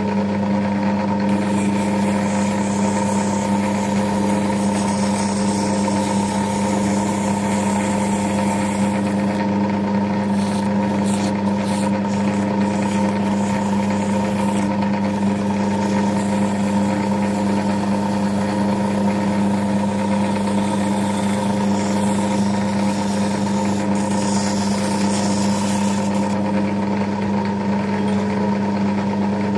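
Centre lathe running steadily under power, its motor and geartrain giving a constant hum with an even pitch.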